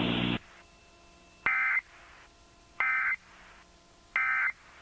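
Emergency Alert System end-of-message (EOM) data signal heard over FM radio: three short, identical bursts of warbling digital tones, about a second and a half apart, marking the end of the alert. Just before the first burst, a steady hum with hiss cuts off.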